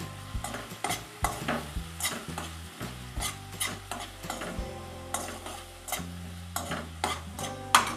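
Metal spoon stirring onion-tomato masala frying in a stainless-steel kadhai, with irregular clinks and scrapes against the pan over a steady sizzle of hot oil.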